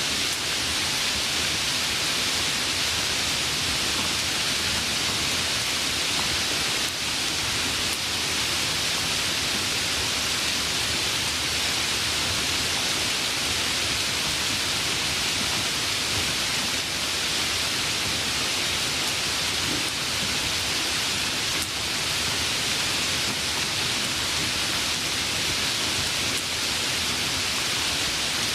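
Steady, even rainfall hiss with no thunder.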